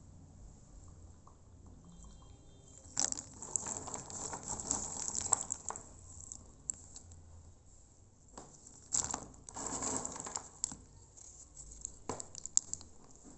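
Dried areca nuts clattering and rustling against one another as they are handled in a heap, in several bursts with quieter gaps between.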